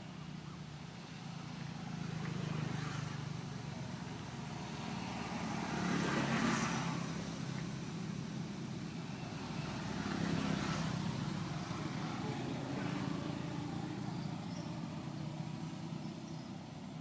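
Motor vehicles driving past over a steady low engine hum, two of them swelling up and fading away about six and ten seconds in.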